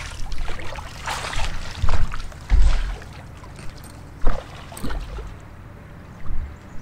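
Irregular knocks, rustling and a heavy low thump from handling on a fishing boat's front deck, with a low rumbling background.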